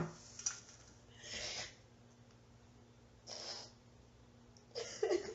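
A person crying: two short sniffs, then a brief pitched whimper or sob near the end.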